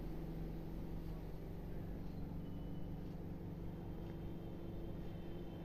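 A steady low hum, with a few faint metallic scrapes and clicks as the steel lid of a chakli press is screwed shut.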